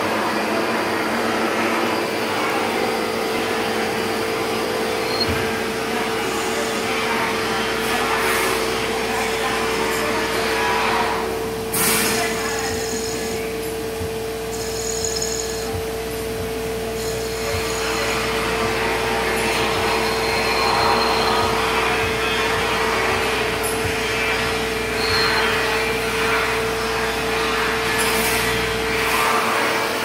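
CNC lathe spindle running with a steady whine while a carbide turning insert cuts a metal hose barb connector, giving a continuous hissing, grinding cutting noise. The cutting noise drops back for a few seconds around the middle, then picks up again.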